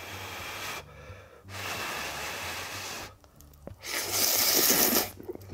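Ramen noodles slurped up with chopsticks in three long sucking slurps, the last, about four seconds in, the loudest.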